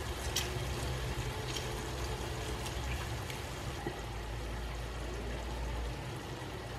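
Carrots and onions cooking in a nonstick wok with a steady low sizzle, with a few light clicks in the first few seconds.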